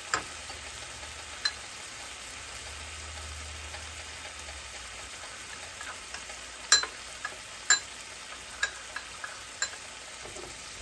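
Cubes of firm tofu frying in a pan: a steady sizzle with sharp pops scattered through it, the loudest two coming a second apart past the middle.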